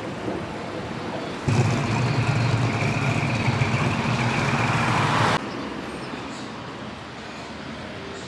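Street traffic, with a motor vehicle's engine running loud and close, a steady high whine over it, from about a second and a half in. It cuts off suddenly about four seconds later, leaving softer traffic noise.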